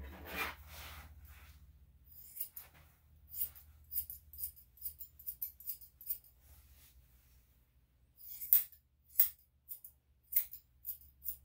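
Grooming scissors cutting a dog's fur in irregular runs of short, sharp snips, the loudest a few near the end, after a brief rustle of fur at the start.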